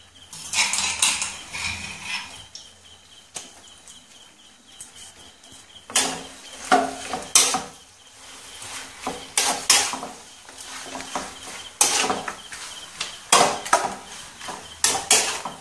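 Chicken and spice mixture being stirred in a non-stick pan, with irregular scrapes and knocks against the pan in short clusters.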